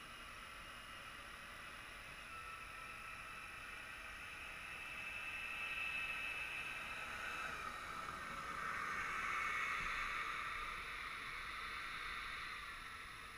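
Electric ducted-fan motor of a model Yak-130 jet whining as it taxis, growing louder towards the middle with a shift in pitch about halfway, then fading near the end.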